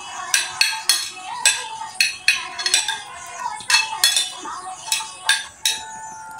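Metal spoons clinking and scraping against ceramic plates as two people eat fast, with sharp clinks about twice a second.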